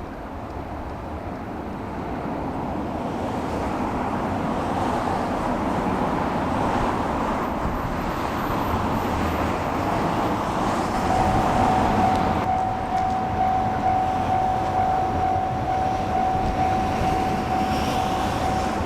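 A train running on the line, its rumble and wheel noise building over the first several seconds. A steady high tone joins about halfway through and holds.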